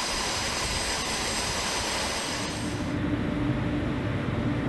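Jet aircraft engine noise, a steady hissing rush, heard from a fighter's cockpit on a carrier flight deck. About three seconds in it cuts to a duller, steady rumble with a low hum.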